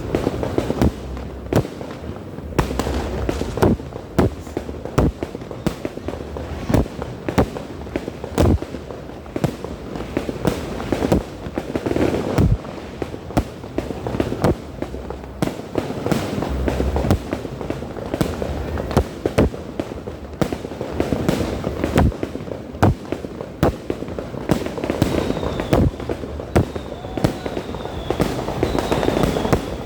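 Fireworks going off in a dense, continuous barrage: many sharp bangs, several a second, over steady crackling, with a few short falling whistles near the end.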